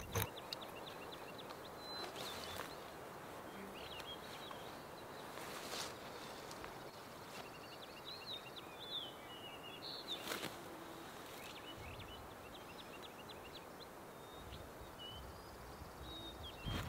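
Small birds chirping over a quiet outdoor ambience, with a few brief rustles about two, six and ten seconds in.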